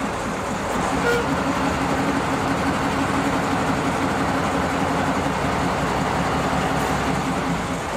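Narrow-gauge diesel locomotive's engine running steadily as the locomotive creeps up to a carriage for coupling, getting a little louder about a second in.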